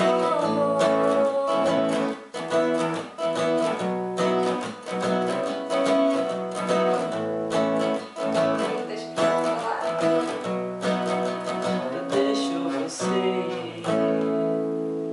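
Acoustic guitar strummed in a steady rhythm. Near the end a last chord is left to ring and fades out.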